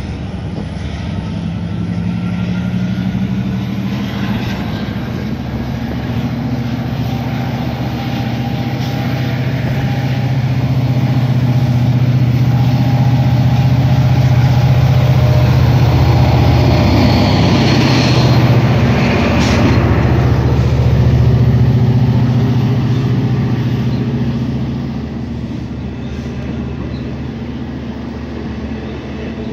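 Diesel-electric locomotive engine running under load as a passenger train pulls out, a steady low drone that swells as the locomotive comes past, stays loudest through the middle, then eases off as the bilevel coaches roll by.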